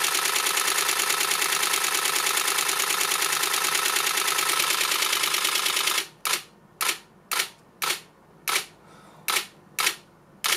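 Nikon D4 shutter and mirror firing in a continuous high-speed burst, a rapid even rattle of about 11 frames a second. About six seconds in it drops to single shutter clacks roughly twice a second, typical of the camera's buffer filling and the burst slowing while it writes to the card.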